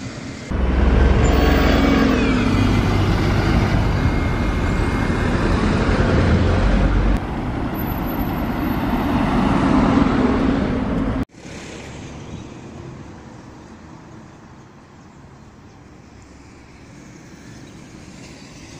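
A heavy road vehicle's engine runs loud and close for the first ten seconds or so over passing road traffic. After a sudden cut, only quieter, steady distant traffic noise remains.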